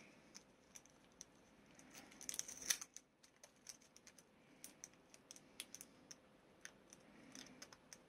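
Faint, scattered clicks and light taps of small model-kit parts and screws being handled, with a brief cluster of them about two seconds in.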